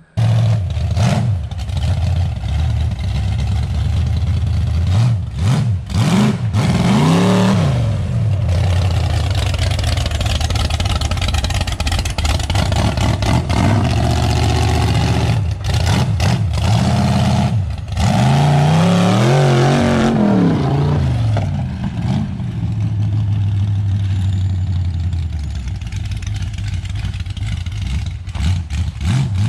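Mud truck's 383 stroker small-block Chevy V8 running loud and revving, its pitch rising and falling in two long sweeps, about six seconds in and again near twenty seconds. The sound breaks off briefly a few times.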